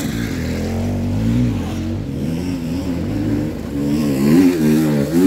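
Two-stroke enduro motorcycle engine running while the rider picks up and pushes the fallen bike on a steep hill, its pitch rising and falling with throttle blips, loudest about four and a half seconds in.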